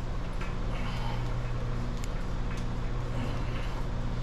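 A steady low hum runs throughout, with a few light clicks and knocks from tools on engine parts.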